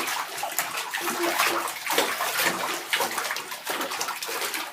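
Water splashing and sloshing, continuous and irregular.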